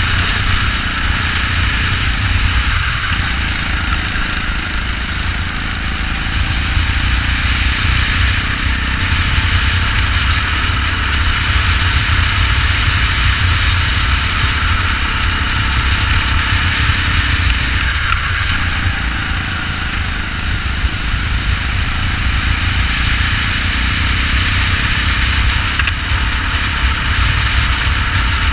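Go-kart engine running at race pace over a heavy low rumble, with two brief dips, about three seconds and eighteen seconds in.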